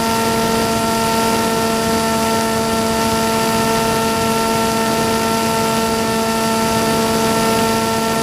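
Electric RC plane's D2826-6 2200kv brushless outrunner motor spinning a 6x4 propeller at steady throttle, giving an even, unchanging whine over a steady rushing hiss.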